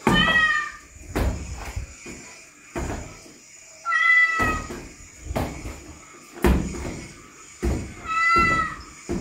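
Three short meows about four seconds apart, nearly identical in pitch and shape, over a string of dull knocks roughly once a second.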